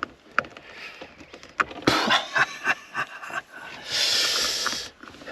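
Small clicks and scrapes of hands prising at the plastic knobs and switch parts of a car's dashboard heater controls, with a breathy hiss lasting about a second around four seconds in.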